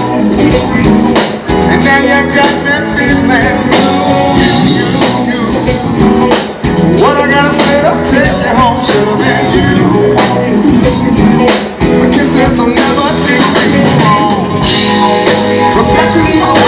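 Live blues-rock band playing through a PA: electric guitars, keyboard and drums, with a lead vocalist singing over them.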